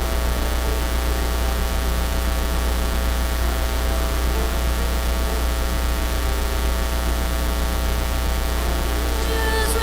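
Loud, steady electrical mains hum with a buzz of many steady tones and a hiss over it, the bad sound of a faulty audio feed. Music starts right at the end.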